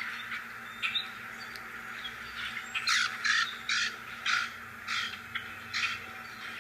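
A bird calling: a run of about seven short, harsh calls, about two a second, over a steady high hiss.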